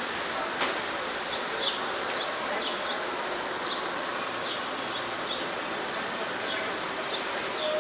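Steady high buzzing of insects, with short high chirps scattered through and a single sharp click about half a second in.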